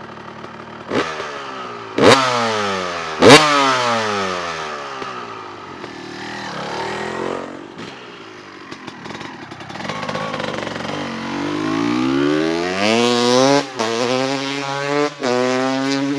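2003 Honda CR250R two-stroke engine through an FMF Fatty expansion chamber and Titanium2 silencer, blipped sharply three times with each rev falling back quickly. The revs then climb steadily over several seconds and hold high, with two brief dips near the end.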